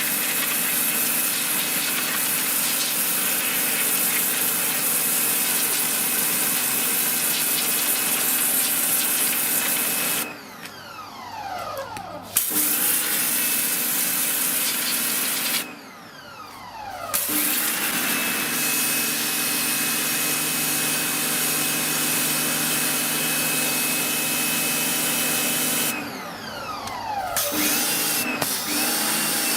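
Sunpow BCN-H electric pressure washer running and spraying: a steady motor-and-pump drone with the hiss of the water jet. Three times it cuts out, the motor whine falling away as it winds down, then starts again a second or two later, the machine's auto-stop as the trigger is released and pulled again.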